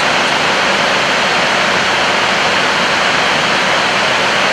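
Steady rushing noise of air flowing over an Airbus A320's flight deck in flight, even and unbroken.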